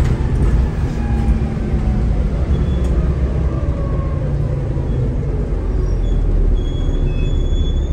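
Double-decker bus running, heard from inside the upper deck: a heavy steady rumble with a drivetrain whine that falls in pitch through the first half, and brief faint high squeals near the end.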